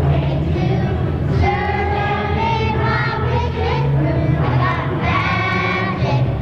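A children's choir singing a song together.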